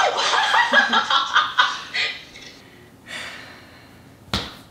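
A woman giggling in quick breathy bursts for about two seconds, trailing off into a soft breath. A single sharp click near the end.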